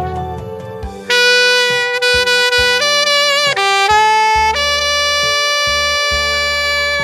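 Saxophone playing a slow melody in long held notes, with vibrato on some of them, over a backing track with a pulsing bass line.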